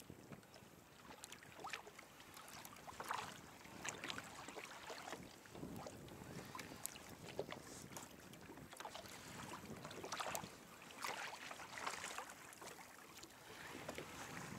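Small waves lapping and slapping irregularly against a plastic kayak hull, over light wind on the microphone.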